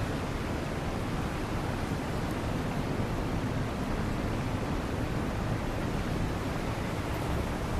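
Steady, even hiss of a rainy city street, with rain and traffic noise blended into one rush.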